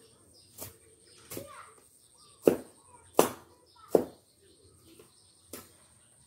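Weeds being hacked with a hand blade: six short chopping strikes at an uneven pace of about one a second, the three loudest in the middle.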